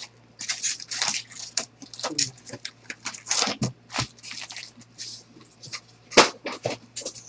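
Foil-wrapped Bowman Draft card packs crinkling and rustling in quick, irregular bursts as they are pulled from their cardboard box and stacked, with one sharp knock about six seconds in.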